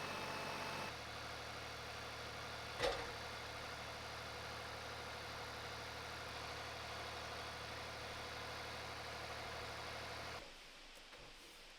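Small gasoline engine of a portable sawmill running, dropping to a quieter idle about a second in, with one sharp knock a couple of seconds later. The engine shuts off near the end.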